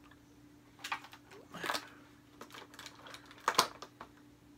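Hands handling a small cardboard box and toy packaging: irregular clicks, taps and rustles, the loudest a sharp knock about three and a half seconds in.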